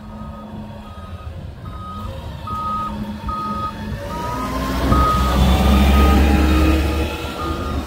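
An electronic warning beeper sounding a steady high beep about every 0.8 s, like a reversing alarm. About four seconds in, a heavy vehicle approaches with a rising whine, and it rumbles past loudest around five to seven seconds in.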